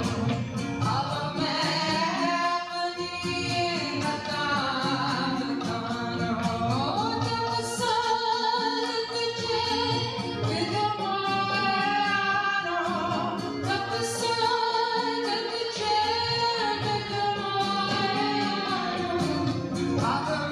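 Sikh kirtan: voices singing a devotional hymn to instrumental accompaniment with a steady percussive beat.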